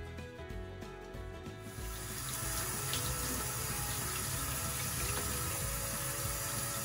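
Sink faucet turned on about two seconds in, water running from the tap into a utility sink as a wet puppy is rinsed, a steady splashing rush.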